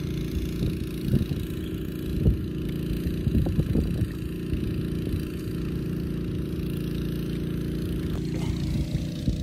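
A motor running steadily with a low, even hum. A few soft knocks and rustles of handling come in the first half.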